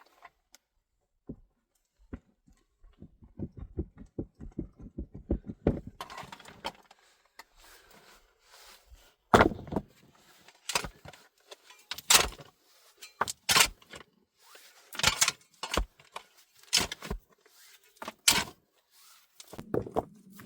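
A series of sharp knocks, coming irregularly about once every second or so, after a quick run of faint low ticks.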